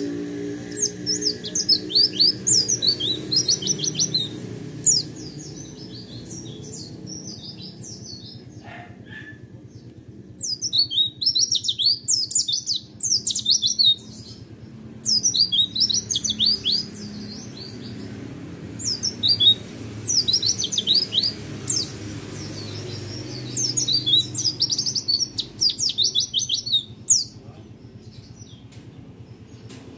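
Caged white-eye (pleci) singing in about five bursts of rapid, high, fast-repeated twittering notes, each a few seconds long with short pauses between. This is the rolling, rapid-fire 'roll tembak' song that Indonesian pleci keepers prize.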